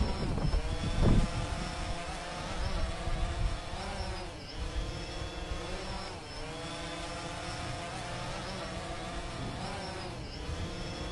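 A steady machine hum with several pitches, wavering slightly and dipping briefly every couple of seconds.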